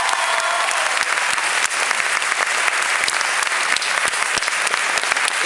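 Audience applauding steadily: many hands clapping in a large hall.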